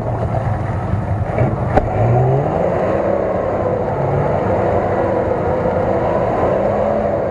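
4x4 SUV engine held at high revs under load, its pitch wavering, while the wheels spin in deep mud: the vehicle is stuck and churning mud. There is one short knock about two seconds in.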